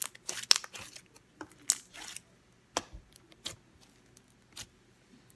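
Sticky homemade slime being squeezed and kneaded by hand on a wooden table: irregular clicks and crackling pops, thinning out near the end.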